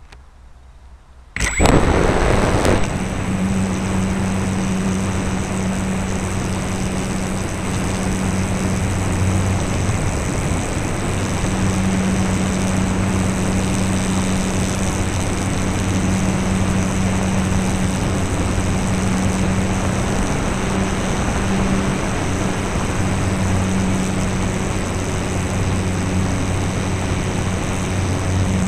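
Electric motor and propeller of a Radian RC motor glider starting up about a second and a half in, then running steadily at power as the plane climbs: a steady hum with a high whine over it and rushing air, heard from a camera mounted on the plane.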